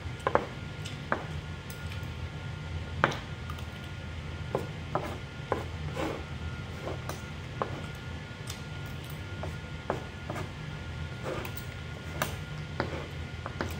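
Metal spoon and fork clicking and scraping against rice on a paper food wrapper: irregular light clicks every second or so, over a steady low hum.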